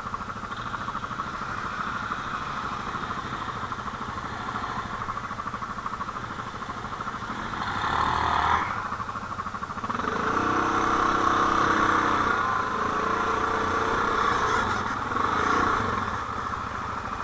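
Quad bike (ATV) engines running with a steady, fluttering note. It swells briefly around eight seconds in, and a lower engine note joins from about ten seconds in.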